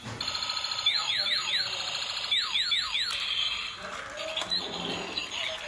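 Toy robot car's built-in electronic sound effects from its small speaker: an alarm-like buzzing tone with two quick runs of about four sweeping 'pew' tones each, then a jumble of electronic beeps.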